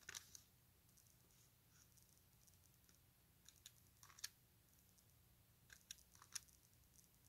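Faint, scattered clicks of an HP 10s scientific calculator's keys being pressed, with a few quick taps about four seconds in and again about six seconds in.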